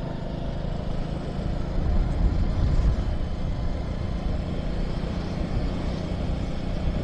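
Motorcycle engine running steadily as the bike is ridden along a road, heard from the rider's seat, with wind and road noise on the microphone.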